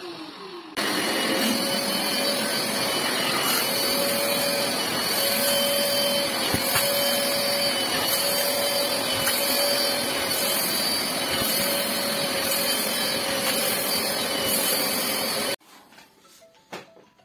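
Wet-extraction upholstery cleaner ("steam vacuum") running, its suction drawing through the hand tool as it is worked over a mattress: a steady rushing noise with a constant whine. It starts suddenly about a second in and cuts off suddenly near the end.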